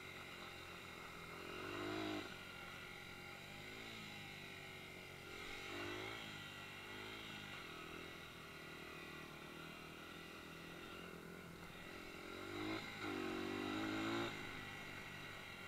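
Dirt bike engine running under way, its pitch rising and falling as the throttle is opened in three short revs: about two seconds in, around six seconds, and loudest near the end.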